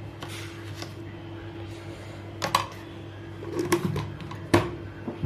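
A pot of water with tempered spices heating on a stove under a steady low hum, with a few sharp clicks and knocks, the loudest about four and a half seconds in.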